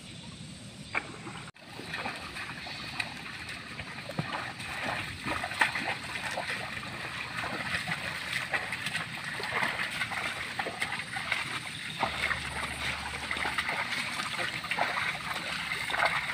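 A pair of water buffalo wading and dragging a wooden plough through a flooded, muddy rice paddy: a continuous run of splashing and sloshing in water and mud.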